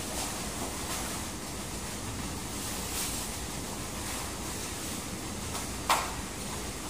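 Steady rushing noise, with a few light knocks and one sharp knock about six seconds in, as workers handle sacks of chicken feed.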